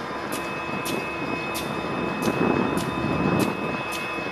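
Diesel locomotive rumbling, louder in the middle, with a bell ringing in regular strikes a little under twice a second.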